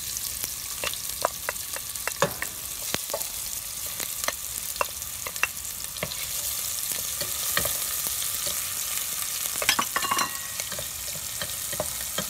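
Shallots, garlic and ginger frying in hot oil in a stainless steel pot: a steady sizzle, with scattered clicks and scrapes from a wooden spatula stirring against the pot. A cluster of louder knocks comes about ten seconds in.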